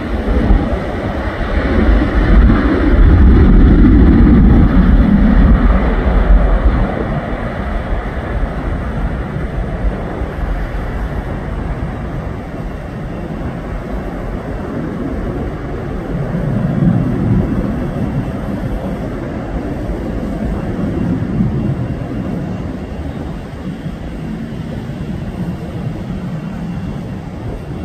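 Twin CFM56-7B turbofans of a Boeing 737-900ER at takeoff power: a loud, deep rumble as the jet rolls past, then a slowly fading roar as it climbs away, swelling briefly again about two-thirds of the way through.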